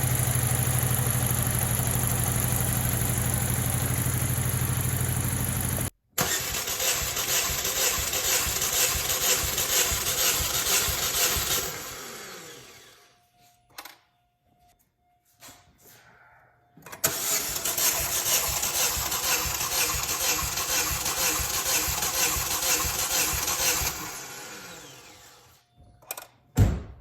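Chevrolet Malibu engine running rough, shaking from a misfire on cylinders 2 and 3, for about six seconds. It then cuts to the engine being cranked on the starter twice, each time for about six seconds with a pause between.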